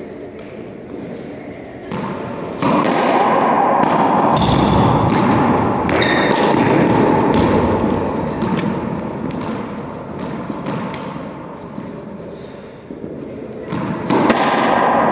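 Racquetball rally in an enclosed court: the rubber ball is struck by racquets and smacks off the walls and floor in irregular sharp hits, each ringing in the court's echo. The hitting grows louder and busier about two and a half seconds in.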